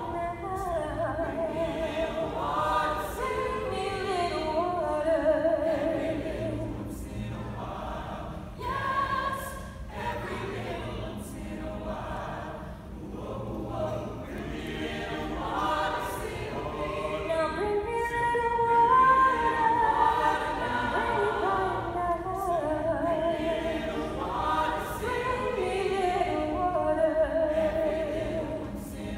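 Mixed-voice high school vocal ensemble singing a cappella in harmony, male and female voices together.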